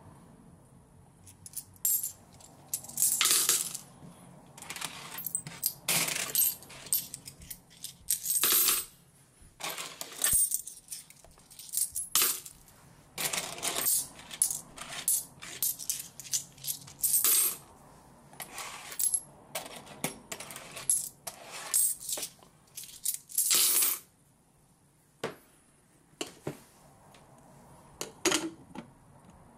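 Coins dropped one after another into the clear plastic barrel of a KT-6808 mini tumbler, each landing with a clink on the metal polishing shot and the coins already inside. The clinks come in a quick, irregular run and thin out to a few near the end.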